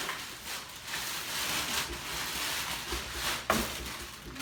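Rustling of packaging material as a boxed sword is unwrapped and handled, with a sharper knock about three and a half seconds in.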